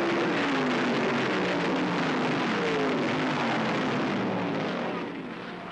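A pack of Formula A (Formula 5000) race cars with V8 engines accelerating away at the green flag. Several engine notes overlap and slide down in pitch, then fade in the last second or so.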